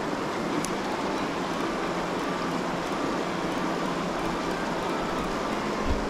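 Steady rush of river water flowing over a shallow gravel bed. There is a brief click about half a second in and a low thump near the end.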